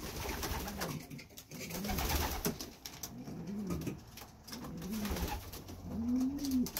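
Racing pigeons cooing: a run of low coos, each rising and falling in pitch, about one every second or so, the last one near the end the loudest.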